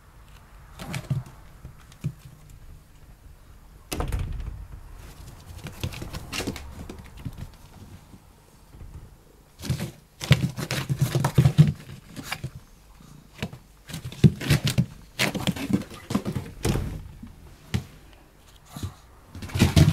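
A sliding glass door being opened with a sudden thud about four seconds in, followed by irregular clusters of knocks and rustling close to the microphone.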